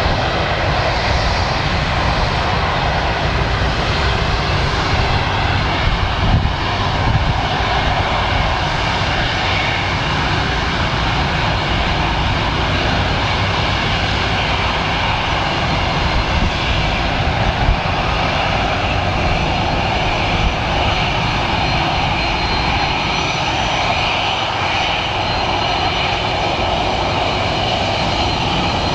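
Twin jet engines of an Air Canada Airbus A330 running steadily as the airliner rolls along the runway, a continuous jet rumble with a faint high whine.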